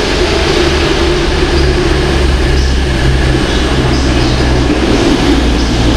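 Diesel multiple unit's underfloor diesel engines running close by: a loud, steady low drone with a deep hum that holds through.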